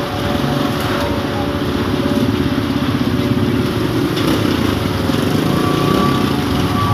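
Motorcycle engine idling steadily, an even low putter.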